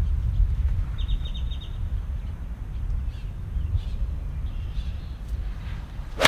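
Steady low wind rumble on the microphone, with birds calling: a quick chatter of about eight notes about a second in, then a few fainter calls. At the very end, one sharp click as a pitching wedge strikes a golf ball.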